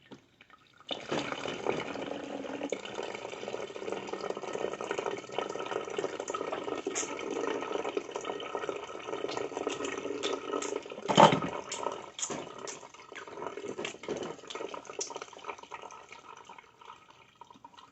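Liquid from a blended lemon mixture running through a mesh strainer into a container, with one sharp knock about eleven seconds in. The flow thins out near the end.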